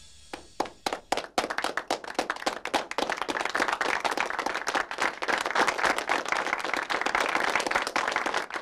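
Audience applauding: a few scattered claps at first, building within a second or so into steady applause that falls away near the end.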